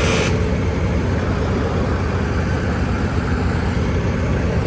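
Heavy diesel engine running steadily with a low, even rumble, with a short hiss right at the start.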